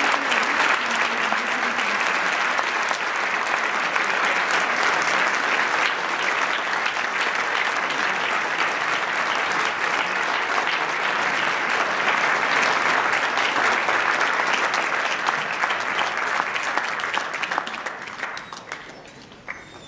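Many people clapping in a long standing ovation. The applause holds steady and full, then thins out and dies away over the last couple of seconds.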